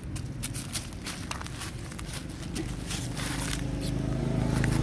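Dry leaf litter crackling and crunching underfoot, with many short sharp clicks. In the second half a low steady hum comes up underneath.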